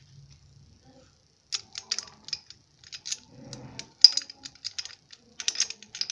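Irregular metallic clicks and taps of hand tools and parts being worked on a motorcycle's exposed clutch assembly while it is tightened, starting about a second and a half in.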